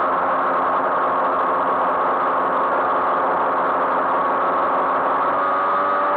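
Moped's small two-stroke engine running steadily while riding, its pitch rising slightly near the end.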